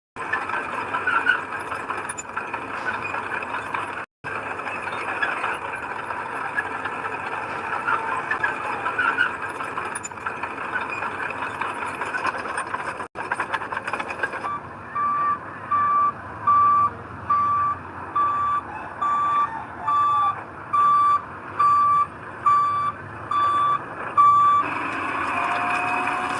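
Heavy earthmoving machinery running loudly. From about halfway through, a reversing alarm beeps steadily about once a second over the engine for some ten seconds, the sign of the machine backing up.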